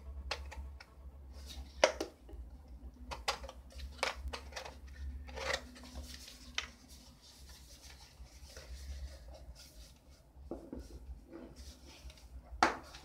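Plastic FPV goggles and their strap being handled and turned over in the hands: irregular rubbing, scraping and small clicks, with a sharper knock near the end.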